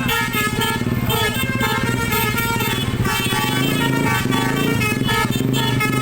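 Bus telolet horn, a 12-trumpet air-horn set, sounding a koplo-style melody in quick stepped notes, with an engine running underneath.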